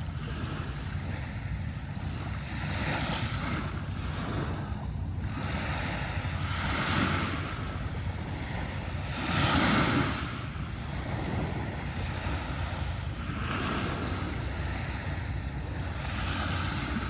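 Sea waves breaking and washing up a sandy beach. Swells of surf noise rise and fall every few seconds, the largest about ten seconds in, over a steady low rumble.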